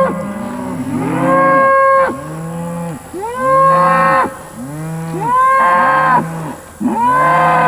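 Cattle, steers by the sale listing, mooing one after another: about four long calls, each rising and then falling in pitch, coming roughly every two seconds.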